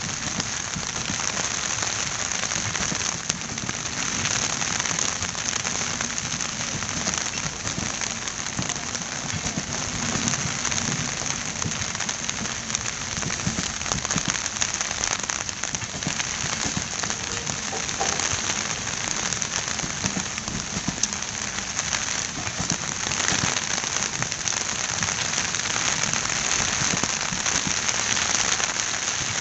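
LHB passenger coaches rolling past on the track: a steady rushing noise full of fine clicks from the wheels on the rails, mixed with rain.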